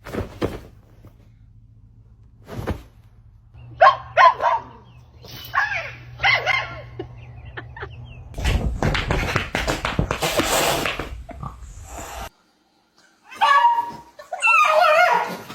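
A dog barking and whimpering in several short separate calls, with a stretch of rustling noise midway.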